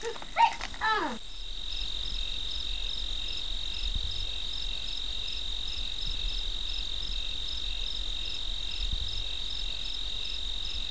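Crickets chirping in a steady high trill that pulses about twice a second, starting about a second in, after a few short rising-and-falling calls.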